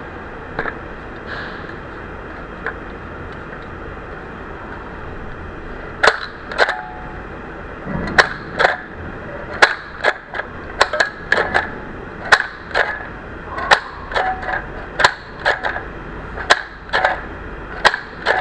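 Sun stapler-style hand sewing machine squeezed repeatedly to stitch through cloth: a sharp metal clack with each press, about one to two a second, starting about six seconds in after a few faint clicks.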